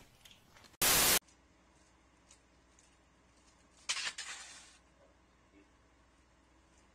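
A brief burst of static-like noise about a second in, marking a cut between clips. Then comes the faint steady hum of a doorbell security camera's microphone, with a short scuffing noise about four seconds in.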